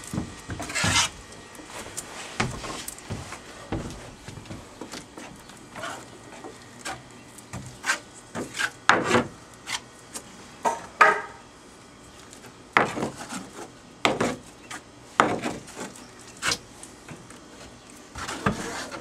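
A hand spreader scraping thick epoxy filler paste over fiberglass, in irregular strokes with a few louder scrapes.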